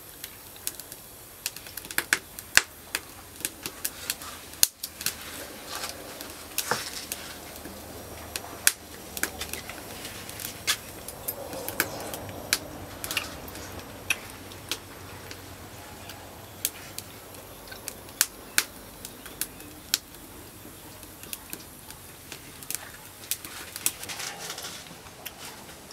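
Spoon clinking against a bowl while soup is eaten: irregular sharp clicks, sometimes several close together, scattered through the whole stretch.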